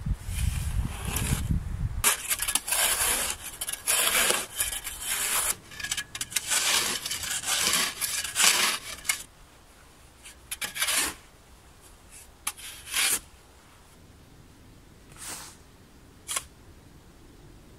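Steel shovel blade scraping and cutting into sandy soil, trimming the walls of a pit: a close run of rasping strokes for about nine seconds, then a handful of single, spaced-out scrapes.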